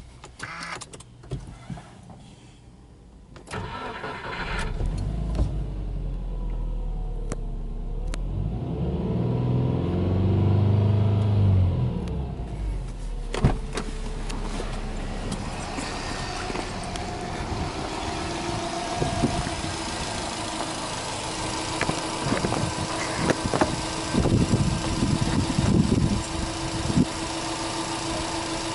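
Subaru Impreza S-GT's turbocharged 2.0-litre flat-four (boxer) engine being started: a few faint clicks, then the engine starts about four seconds in, its speed swells and settles again around ten seconds in, and it then idles steadily. A sharp click comes about halfway through, and scattered knocks come near the end.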